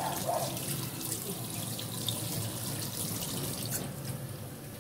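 Tap water running steadily into a stainless-steel kitchen sink as something is washed under it.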